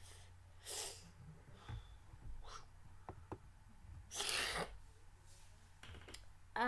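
Breath noises close to the microphone: a short puff just under a second in and a longer one about four seconds in, with a few faint clicks between them.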